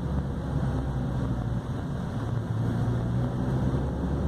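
Chevrolet Corsa Sedan's 1.8-litre four-cylinder engine droning steadily while driving, heard from inside the cabin with road noise. The car's weak sound insulation lets much of the engine noise into the cabin.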